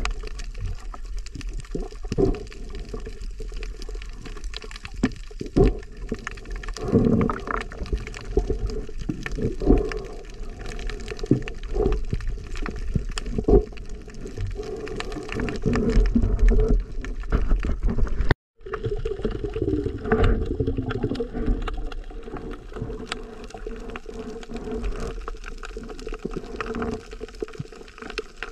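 Muffled underwater sound of a swimming diver, heard through a submerged camera: water rushing and gurgling, with scattered sharp clicks and knocks. The sound cuts out for a moment about two-thirds of the way through.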